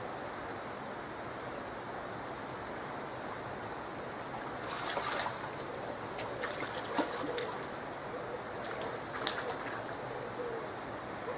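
Steady rush of fast-flowing canal water running like a stream. From about four seconds in, a run of small splashes and clicks at the water surface comes and goes, two of them sharper.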